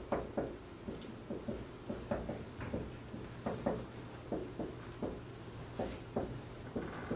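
Dry-erase marker writing on a whiteboard: a quick, irregular run of short strokes and taps as the words are written out.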